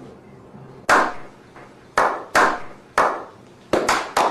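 Slow, echoing hand claps, one about every second at first, quickening near the end as more people join in.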